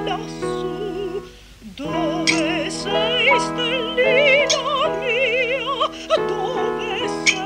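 A woman singing a sentimental song in an exaggerated operatic style, her held notes wobbling with wide vibrato over sustained instrumental accompaniment, like a meowing cat. The voice drops out briefly a little over a second in, then resumes.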